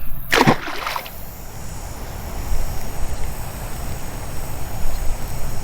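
Wind rumbling steadily on the microphone, with one short burst of noise about half a second in.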